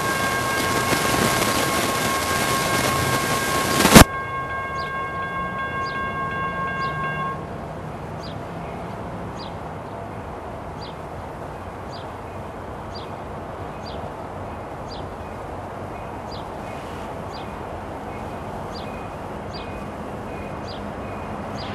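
A distant freight locomotive horn sounds a steady multi-note chord over loud hiss, which stops abruptly with a sharp click about four seconds in. The horn goes on more quietly and ends about seven seconds in. After that, a grade crossing bell pings faintly and regularly, about every 0.7 seconds, over a low rumble from the approaching train.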